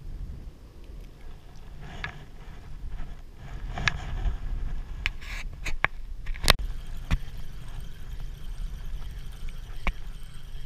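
Low wind rumble on the microphone, with scattered sharp clicks and short scraping noises; the loudest click comes about six and a half seconds in.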